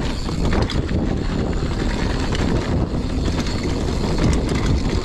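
Mountain bike riding fast over a rough dirt trail: steady tyre rumble with constant small rattles and clicks from the bike.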